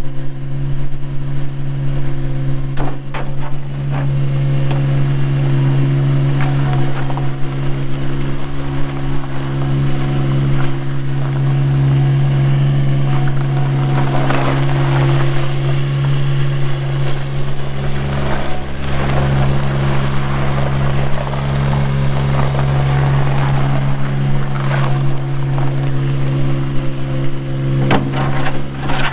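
Bobcat 463 skid steer's Kubota diesel engine running at a steady speed, with several brief bursts of clattering noise over it as the machine is worked.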